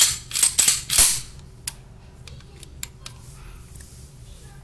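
Baby Desert Eagle 9 mm pistol being cleared: a quick run of sharp metal clacks from the slide being worked in about the first second, then a few light clicks.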